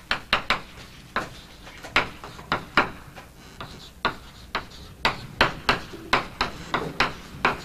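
Chalk writing on a blackboard: a quick, irregular run of sharp taps and short scrapes.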